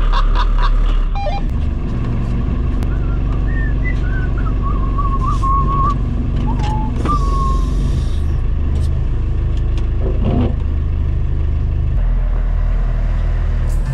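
Telehandler's engine running steadily, heard from inside its cab, as the machine lifts and carries a bulk bag of topsoil.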